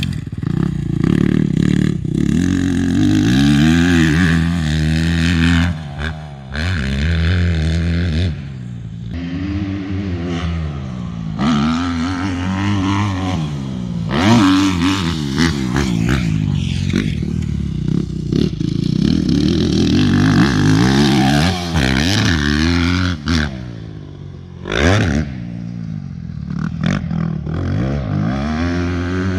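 Yamaha YZ250F four-stroke single-cylinder motocross bike revving hard through the gears, its pitch repeatedly climbing and dropping back as it accelerates off jumps and lands, several passes in a row.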